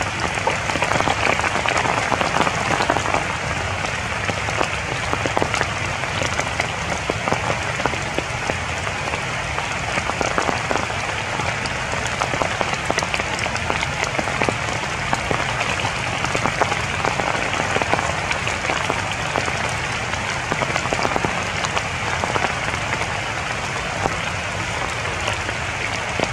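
Steady rain falling on tree foliage, a dense, even spatter of many small drop hits.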